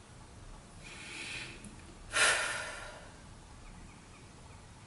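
A woman breathing in softly, then one sharp, loud breath through the nose about two seconds in, fading over half a second. She is close to tears and composing herself.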